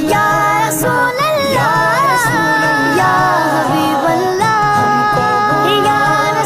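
Naat, Urdu devotional singing: a solo voice sings long, wavering, ornamented notes over a steady held backing.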